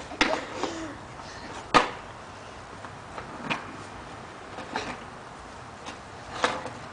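Inline skates knocking and clacking on concrete as a child gets up from the ground: a handful of sharp, scattered knocks, the loudest a little under two seconds in.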